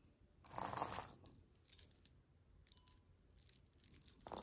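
Costume jewelry being handled over a heap of pieces: a brief soft rustle about half a second in, then scattered light clicks and clinks of metal chains and beads.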